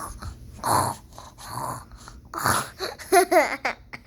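A child making fake snores: three loud, breathy snorts about a second apart. Near the end comes a short, high, wavering vocal noise.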